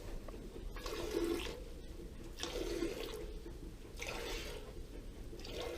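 Hand milking a cow: streams of milk squirting into a pail, in slow swells about every second and a half, as the nearly emptied udder is stripped out.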